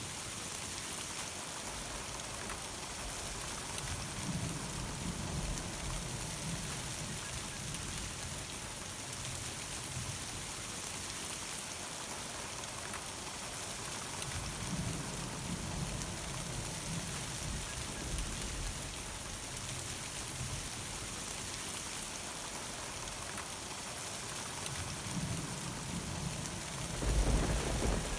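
Steady summer thunderstorm rain hissing down, with thunder rumbling low several times, the loudest rumble near the end.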